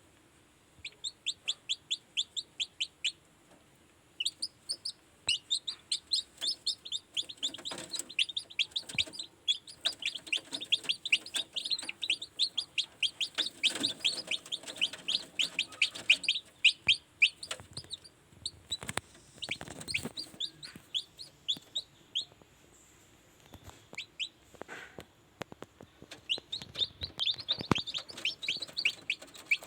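Newly hatched kampung chicks peeping in runs of short, high, falling cheeps, several a second, broken by a couple of short pauses. A few soft knocks come about two-thirds of the way through.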